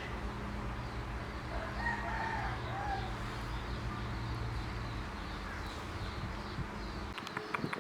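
A single drawn-out animal call, about a second and a half long, beginning about one and a half seconds in, over a steady low hum. The hum cuts off suddenly near the end, and a few sharp clicks follow.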